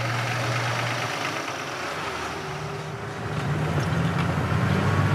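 Truck engine heard from inside the cab, running steadily, then rising in pitch and growing louder about three seconds in as it is given more throttle.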